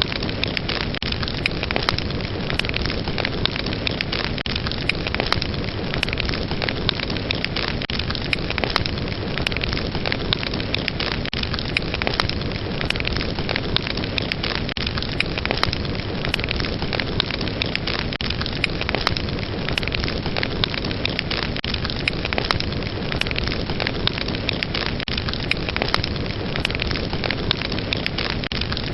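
Fire burning with steady crackling: a dense hiss full of many sharp pops and snaps.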